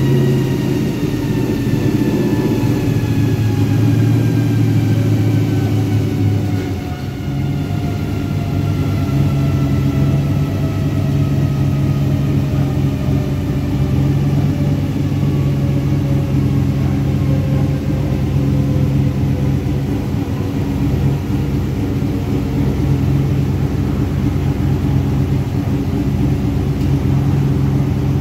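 Twin-turbo 5.3 L L33 LS V8 running in a pickup on a chassis dyno, with a whine from the spinning driveline and dyno roller falling slowly and smoothly in pitch as they coast down.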